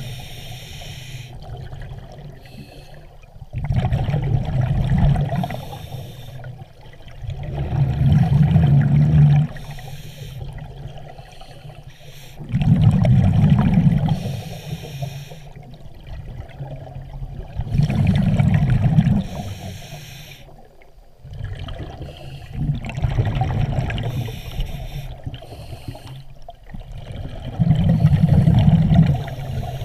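Scuba diver breathing through a regulator underwater: a hiss on each breath in, then a loud burst of exhaled bubbles, six breaths about five seconds apart.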